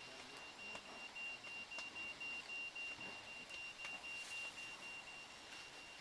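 Aerial tram gondola running along its cable: a faint steady mechanical run with a thin high steady tone and a few light clicks.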